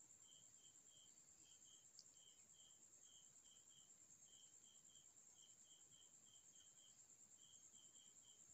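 Faint outdoor insect chorus: a steady high-pitched buzz with short chirps repeating two or three times a second.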